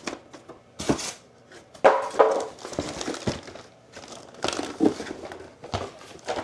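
Plastic packaging crinkling and rustling in irregular bursts as parts are handled and unbagged from the box, with a louder burst about two seconds in.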